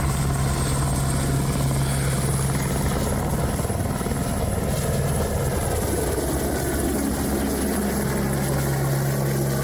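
Helicopter in flight: a loud, steady drone of rotor and turbine with a thin high whine over it.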